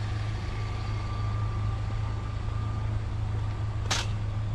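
Vehicle engine idling with a steady low hum, with a short metallic clatter about four seconds in.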